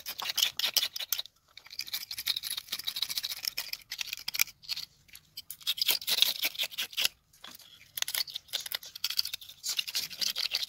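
Scales being scraped off a whole tilapia with a stick: quick rasping strokes against the skin and the concrete beneath, in runs with short pauses.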